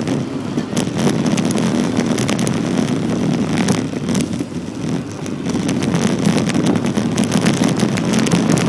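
A coach's engine running close alongside, mixed with wind rushing over the microphone and frequent short crackles.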